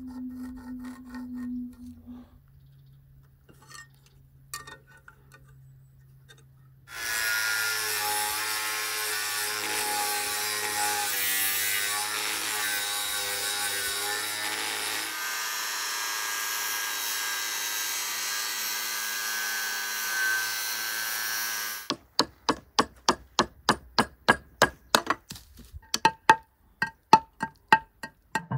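A cordless angle grinder cuts into a concrete chamber lid: about seven seconds in it starts, and for some fifteen seconds it runs as a loud, steady grinding hiss with a high whine. It stops suddenly, and a rapid run of sharp, ringing hammer strikes follows, several a second, knocking out the cut piece of the concrete lid.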